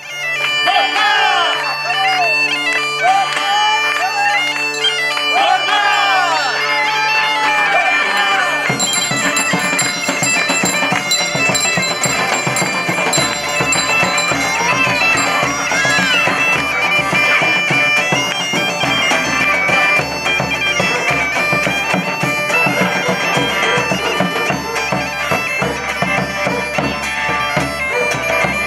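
Bagpipe music: a steady drone under an ornamented, gliding melody, with the band filling out about nine seconds in as drums join.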